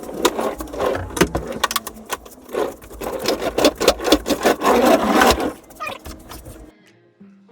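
Clattering, knocking and scraping of shed equipment being moved by hand. The sound stops abruptly about a second before the end.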